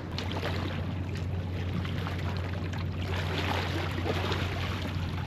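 Steady low hum of a boat's engine running, over an even rushing of wind and water.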